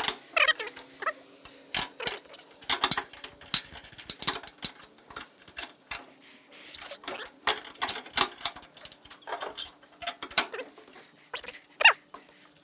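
Aluminum truck-skid side supports being clamped to the base with C-clamps: irregular clanks and knocks of metal on metal, with a few short squeaks.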